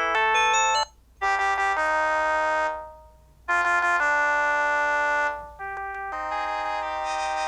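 Polyphonic ringtones played through the Samsung SPH-N195 mobile phone's speaker: one melody ends just under a second in, a short jingle ending on a held, fading chord plays twice with a brief pause between, and a different tune starts near the end.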